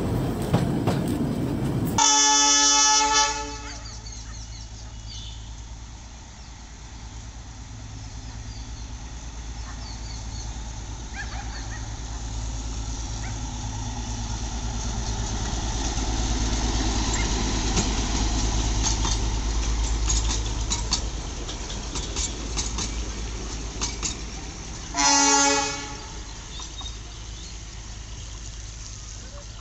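Narrow-gauge diesel locomotive of the Darjeeling Himalayan Railway toy train running with a steady low engine drone and light wheel clicks on the rails. It sounds its horn twice: a blast of about a second and a half about two seconds in, and a shorter one near the end.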